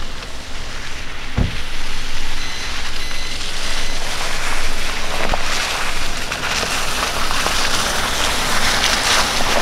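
A Toyota sedan rolling slowly over a slushy, snow-covered dirt track: the tyres crackle through wet slush and gravel, getting stronger in the second half as the car comes closer. There is a low thump about a second and a half in.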